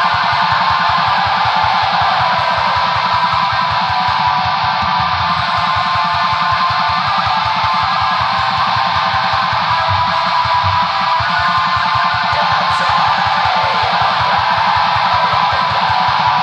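Black metal: a dense wall of distorted electric guitar over rapid, relentless drumming, at a steady high level.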